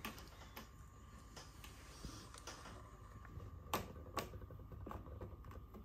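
Quiet room tone with a few faint clicks and taps, two of them clearer a little under four seconds in, about half a second apart.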